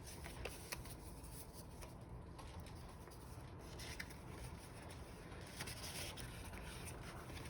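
Faint rustling and a few light taps of paper and card being handled, as cards and tags are slid in and out of the notebook's paper pockets.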